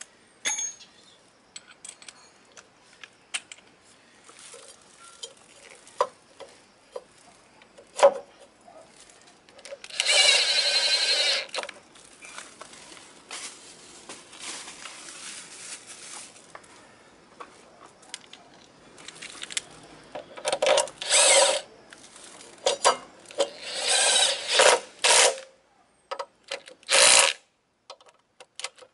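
Cordless power driver with a socket running in several short bursts, turning the bolts of a scooter's front brake caliper. Between the bursts there are light clicks and handling noises.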